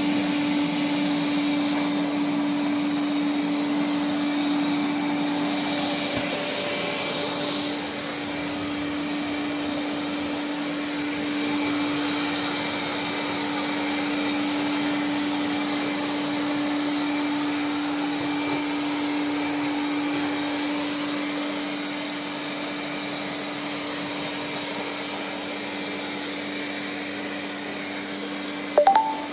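Robot vacuum cleaner running on carpet: a steady motor hum over fan and brush hiss. A brief, loud rising tone sounds near the end.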